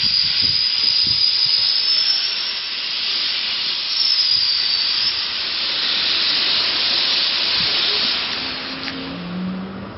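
Steam hissing steadily from the LNER A1 Pacific steam locomotive 60163 Tornado at the head of the train, easing off near the end.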